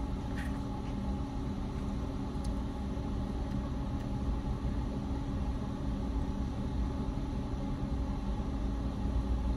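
Steady hum and low rumble of a car idling, heard from inside the cabin.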